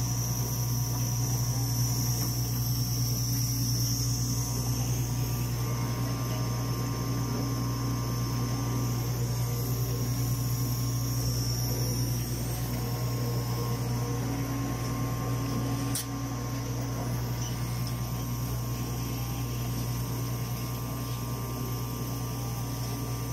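Dimension RxL chemistry analyzer running with its fans and motors on: a steady hum with constant tones over it. A single sharp click about 16 seconds in, after which the hum is a little quieter.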